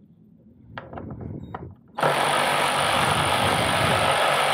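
Cordless power ratchet starts up about halfway through and runs steadily, spinning a fastener off, after a few light clicks of the tool being fitted.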